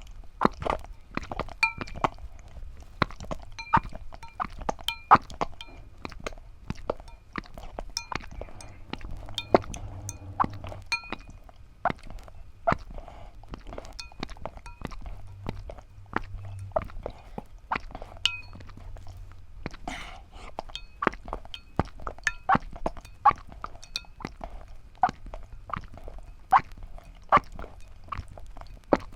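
Eggshells cracking and clinking against a hard surface: a long run of sharp clicks and knocks, a few with a brief ring, over a low hum.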